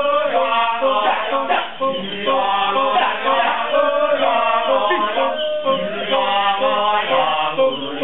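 Kecak chant: a chorus of men's voices chanting and singing without instruments, in held sung notes broken by short pauses and quick sharp accents.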